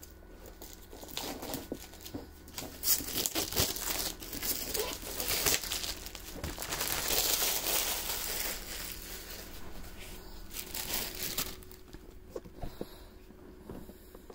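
Plastic shrink-wrap being torn open and crumpled off a board game box. The crinkling is densest in the middle and dies down about two seconds before the end.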